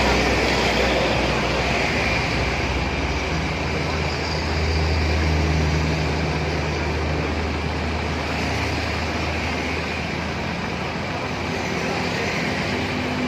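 Mitsubishi 'umplung' truck's diesel engine idling steadily, a continuous low hum.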